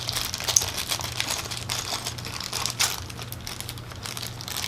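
Plastic packaging crinkling as it is handled, with irregular rustles and light clicks, likely from a bagged set of spare keycaps.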